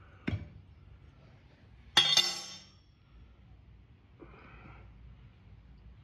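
A sharp metallic clink about two seconds in, ringing briefly, from steel tire spoons (tire irons) levering a small dirt-bike tire onto its rim; a lighter tap comes just before it, near the start.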